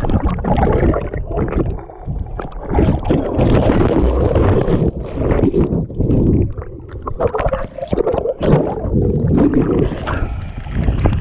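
Wind buffeting the microphone in uneven gusts, over the rush of a waterfall and its stream.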